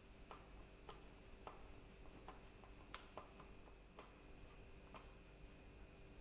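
Faint, irregular clicks about every half second as a Phillips screwdriver turns the screw holding a Dyson V6 battery pack in the vacuum's handle, with one sharper click near the middle.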